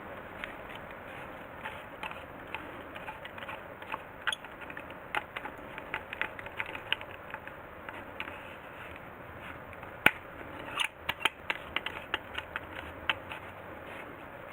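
Irregular small clicks and knocks of objects being handled, over a steady hiss, with one sharp click about ten seconds in.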